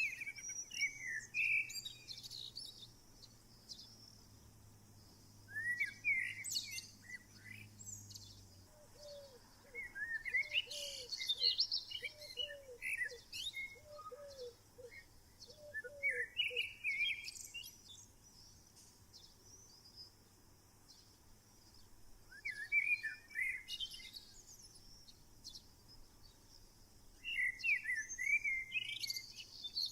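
Wild songbirds singing: one bird repeats a short, quick phrase of chirps about every five seconds, while higher twitters come and go. A row of about ten lower, short notes sounds between about 9 and 17 seconds in.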